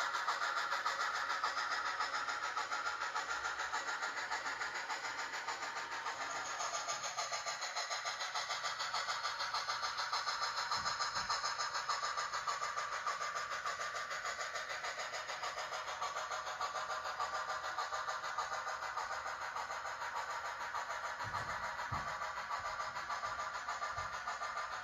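Steam locomotive sound from the Tsunami sound decoder of a Blackstone HOn3 D&RGW C-19 model, played through its small onboard speaker: steady, rapid exhaust chuffing with no deep bass. A few faint low thumps come in around the middle and near the end.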